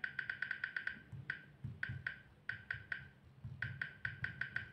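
Tecno Pop 6 Pro's touch sound: short 'tak tak' clicks from the phone's speaker as its navigation buttons are tapped, in quick runs of several a second broken by a couple of brief pauses.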